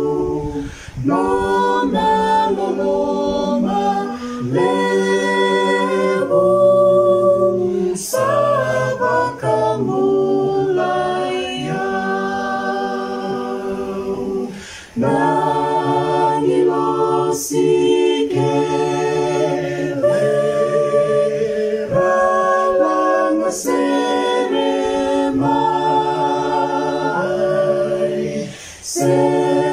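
A small mixed group of men and women singing unaccompanied in parts. They sing long held phrases, with brief breaks for breath between them.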